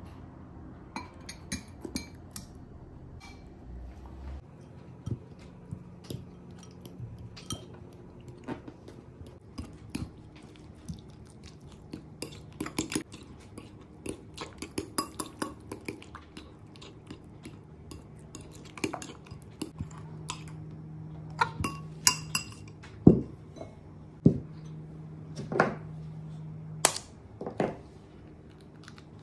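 Metal fork clinking and scraping against a glass bowl while mashing canned sardines, a run of short irregular clinks, with a few louder knocks in the last several seconds.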